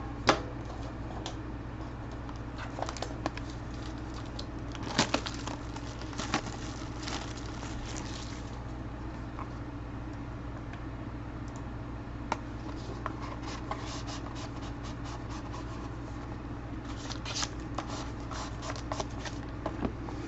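Hands opening and handling a sealed box of trading cards: scattered clicks, scratches and rustles of cardboard and wrapping being torn and pulled, over a steady low hum.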